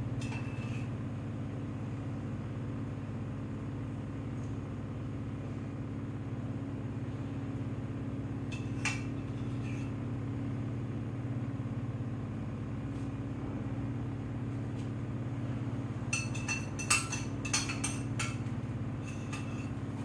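A spoon clinking and scraping against a small bowl while dishing out a creamy topping: a single clink about nine seconds in and a quick run of clinks near the end. A steady low hum runs underneath.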